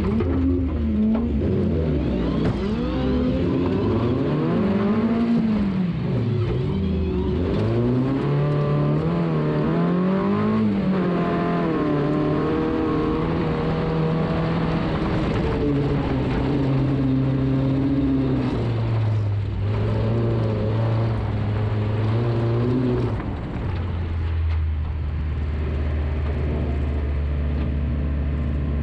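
Stock car engine heard from inside the car, revving up and falling back again and again as the throttle is worked hard and lifted. About 23 s in, it settles to a low, steady drone.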